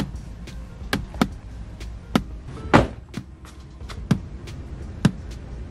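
Morel Maximo Ultra car speakers popping with a polarity-test pulse signal, about one sharp pop a second, as each speaker is checked to confirm it moves in the right direction. A few extra clicks fall between the pops, the loudest near the middle.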